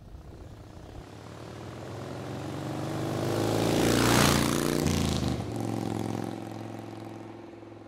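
A motorcycle passing by on the road, its engine growing louder to a peak about four seconds in and then fading away.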